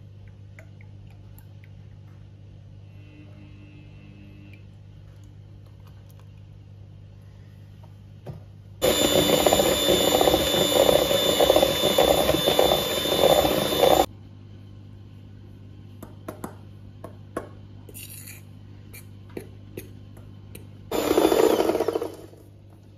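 Electric hand mixer beating cake batter in a stainless steel bowl: a steady motor whine that runs for about five seconds and stops. It starts again briefly for about a second near the end.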